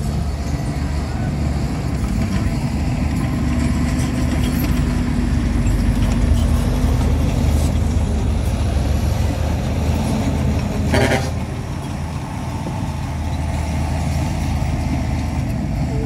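Diesel engines of a crawler bulldozer and dump trucks running steadily under load, with a short hiss about eleven seconds in.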